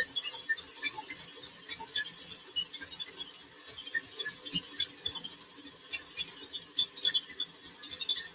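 Stand mixer whipping double cream in a steel bowl: a faint steady motor hum under fast, irregular ticking and splattering from the whisk.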